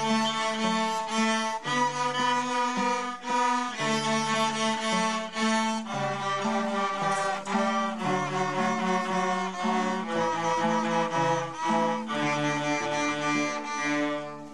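A group of children playing cellos together: one melody line of bowed, held notes changing about every half second to second. The playing fades out at the very end.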